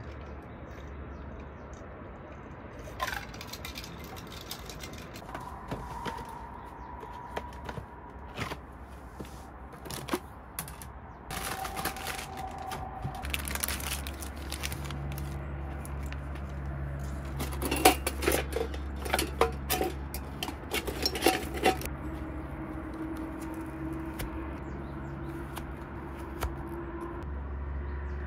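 Crinkling and light clattering as dog food is shaken out of a plastic pouch into a silicone bowl, with a burst of sharp little clicks and rattles about two-thirds of the way through, over a low steady hum.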